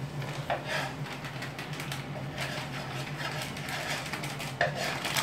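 A utensil scraping and tapping irregularly against a pan as flour is stirred in, over a steady low hum.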